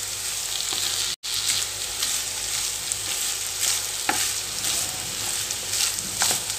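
Vegetable fried rice sizzling in a hot pan over high flame while a wooden spatula stirs it, with a steady frying hiss and a few short scrapes of the spatula against the pan. The sound cuts out for an instant about a second in.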